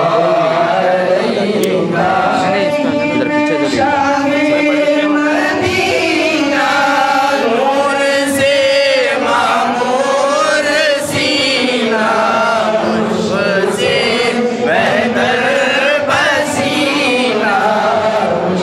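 A group of voices chanting together in a continuous devotional chant.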